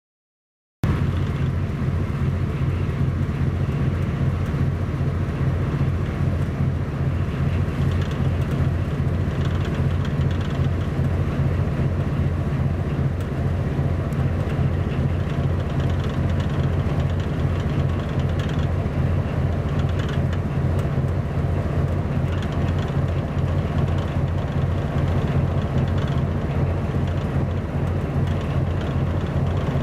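A steady low engine drone with a fast, even throb, holding the same level throughout; it starts abruptly about a second in.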